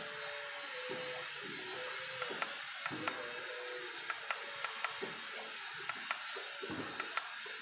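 Servo-driven knitwear linking machine running at a raised speed setting of about 800 rpm: a steady whir with a faint held tone and scattered light clicks.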